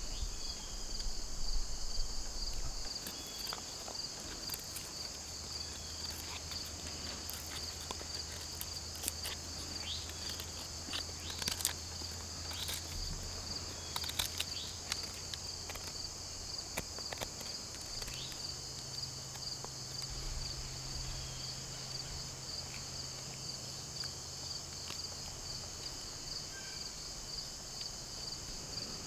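Steady high-pitched insect chorus with a fast, even pulsing trill. Over roughly the first half it is joined by a run of short scrapes and clicks from a knife blade working a small wooden stick.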